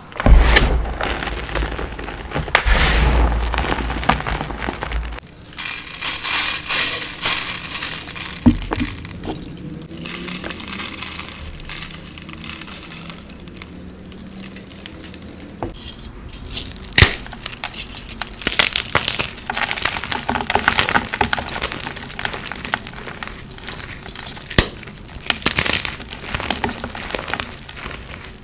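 Hands crushing and crumbling dyed gym chalk: a heavy crunchy squeezing of crumbled chalk for about the first five seconds, then brighter, crisper crumbling of chalk blocks with a few sharp snaps.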